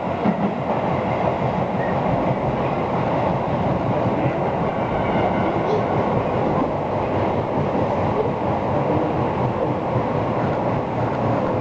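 Tobu Urban Park Line commuter train running between stations, heard from inside the car: a steady rumble of wheels on rails with some clickety-clack.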